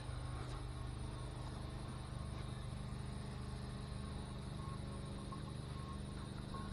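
Insects chirping in a steady pulsing rhythm over a constant low hum.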